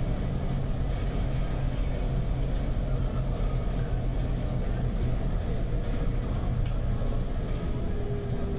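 City bus under way, heard from inside the passenger cabin: a steady low engine and road rumble, with a faint whine gliding slowly down in pitch over the second half.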